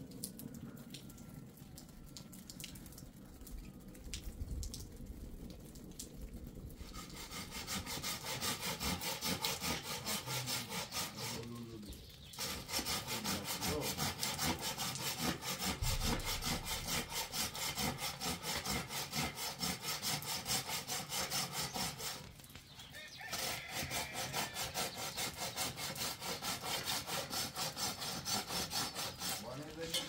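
Hand saw cutting through a tree branch with quick back-and-forth strokes. The strokes start after several quiet seconds and come in three spells, with two short pauses.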